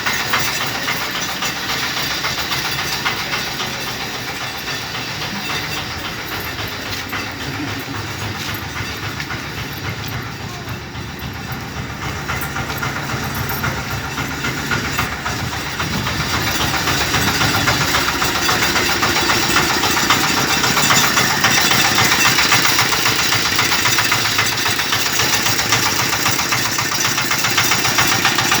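Septic siphoning truck's engine running with the steady hiss of its vacuum suction pump, growing louder about halfway through.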